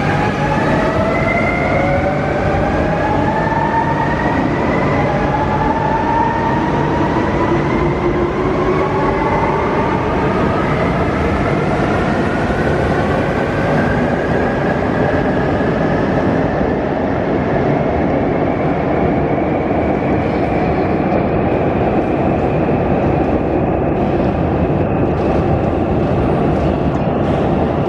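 Renfe Civia electric multiple unit's traction motors and inverters whining as the train accelerates: several tones climb in pitch in overlapping steps, then one tone keeps rising slowly, over a steady running rumble.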